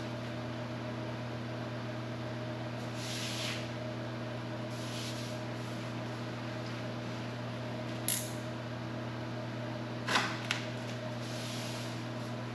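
Soft rustles and short scrapes of self-adhesive sponge neoprene strip being peeled and pressed along a board's edge, with a sharper double click a little after ten seconds as the loudest sound. A steady machine hum underneath.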